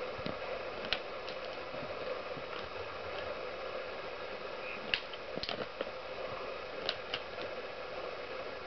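Impala rams' horns clacking together as they spar, with a few sharp knocks about a second in and a cluster between about five and seven seconds in, over a steady background hum.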